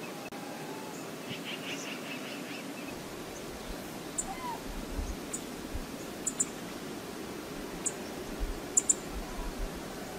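Steady outdoor rush of wind and water, with a few faint bird chirps and a short gliding call, light wind buffets on the microphone, and several sharp ticks, the loudest about nine seconds in.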